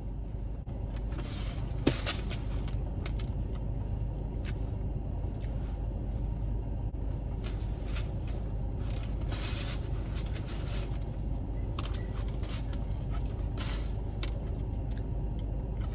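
Steady low rumble of a car idling, heard from inside the cabin, with scattered short rustles and a sharp click about two seconds in.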